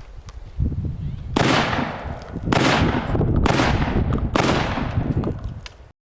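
Four 12-gauge shotgun blasts fired in quick succession, about a second apart. Each is a sudden loud report with a trail fading over most of a second. The sound cuts off abruptly near the end.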